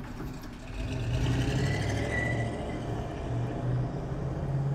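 A 1971 Chevrolet C10 pickup drives away with its engine running. The engine gets louder about a second in as the truck pulls off.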